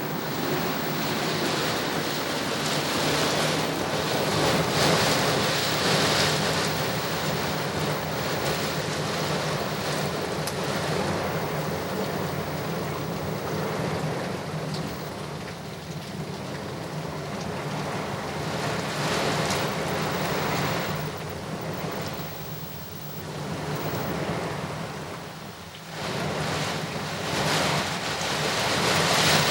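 Heavy thunderstorm rain and wind, a dense steady rush that swells and eases in gusts, dropping briefly near the end before surging again.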